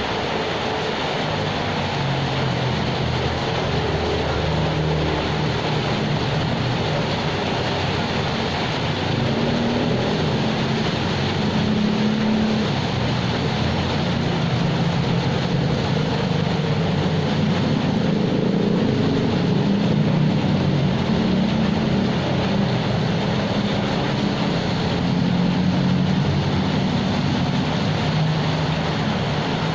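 Steady rain falling, an even rushing hiss that holds the same level throughout, with a low wavering hum underneath.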